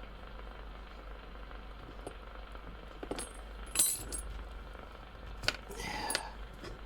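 A few sharp metallic clicks and clinks from handling a microphone plug, the loudest about four seconds in, followed by a short crackle around six seconds in.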